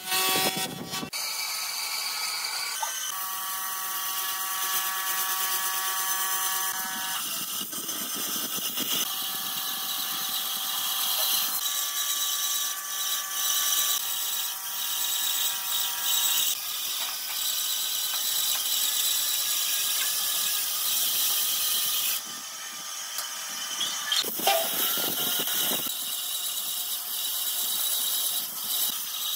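Band saw running and cutting through a thick pine block along a curved line: a steady high whine with the hiss of the blade in the wood, and a pitched ringing that comes and goes. A few sharp knocks come right at the start.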